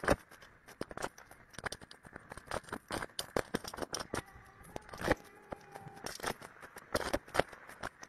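Eurasian blue tit building its nest inside a wooden nest box: a rapid, irregular run of scratches, rustles and sharp clicks as it works the dry grass and moss and its claws scrape on the wood.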